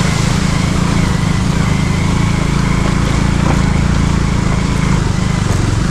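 Motorcycle engine running steadily while riding, with a steady rushing noise over it.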